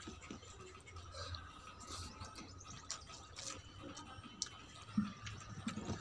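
Fingers mixing rice and egg on a steel plate, with small scattered clicks and scrapes and soft chewing and mouth sounds, and a couple of sharper clicks near the end. Faint chirping in the background.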